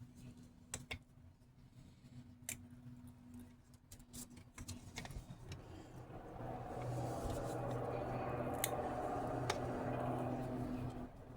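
Small sharp metallic clicks and taps from hand tools working on a starter solenoid. About six seconds in, a steady, louder vehicle engine hum comes in and holds.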